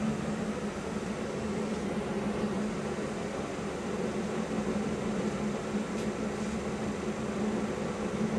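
Mecca Turn 460x1000 lathe running with its carriage traversing under longitudinal power feed: a steady mechanical hum from the drive and feed train, with a faint tick about six seconds in.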